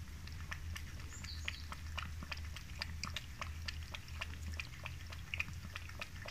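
A cat lapping fish broth from a stainless steel bowl: quick, irregular wet tongue clicks, several a second, over a steady low hum.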